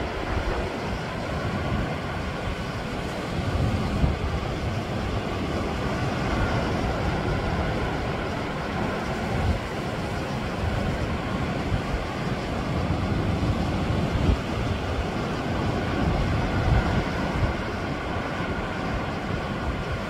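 Sea waves washing over shoreline rocks: a continuous noisy wash with deep rumbling surges every few seconds.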